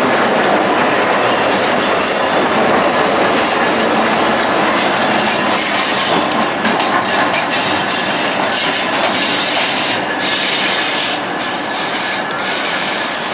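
Siemens Venture passenger train behind a Siemens SCV-42 Charger diesel locomotive running by on the yard tracks: a steady, loud running noise, with wheels clicking over switches and rail joints. Stretches of high wheel squeal come in the second half.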